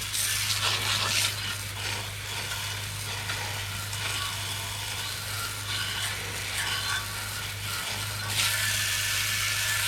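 Water from a garden hose spray nozzle spattering and hissing on a metal mower deck. It swells and fades as the spray moves over the metal and gets louder near the end, over a steady low hum.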